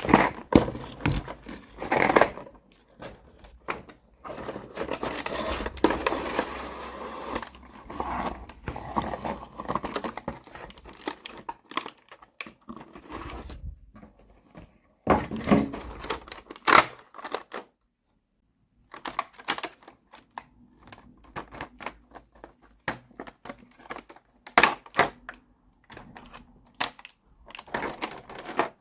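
Plastic packaging crinkling and tearing, with many sharp clicks and taps of small plastic toy pieces being handled.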